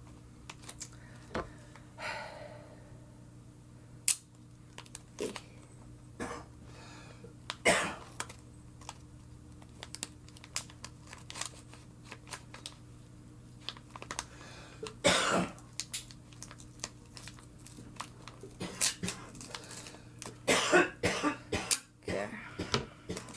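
Handling and unwrapping a small package: scattered crinkles, rustles and clicks of wrapping, with a few louder brief bursts, over a faint steady hum.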